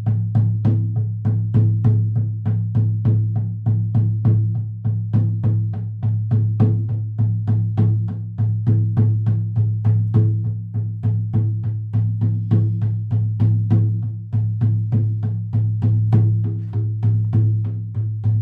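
Hand-held shamanic frame drum beaten with a padded beater in a steady, even rhythm of about three to four strokes a second. Each stroke rings with a deep boom that carries over into the next.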